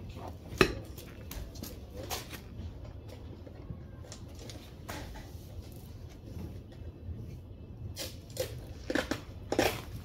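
Scattered light knocks and clicks from handling the roped, blanket-wrapped fridge, a few spread apart and a small cluster near the end, over a steady low background rumble.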